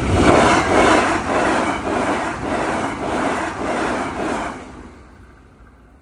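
A train passing over the level crossing, its wheels clattering over the rail joints about twice a second. The noise dies away quickly about five seconds in as the train clears.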